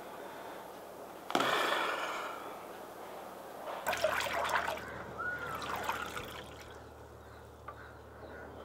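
Water splashing and trickling in two short spells, about a second in and again near the middle.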